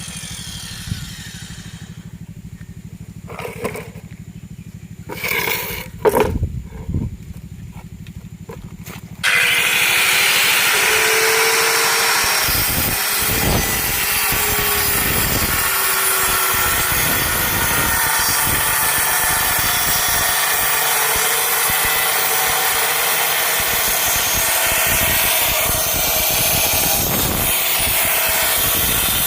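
A few short knocks, then about nine seconds in a circular saw starts abruptly and runs loud and steady while cutting through plywood.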